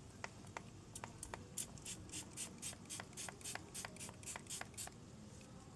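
Finger-pump spray bottle misting a cleaner onto car paint. A few clicks of the pump, then a quick run of about a dozen short, faint sprays, roughly four a second.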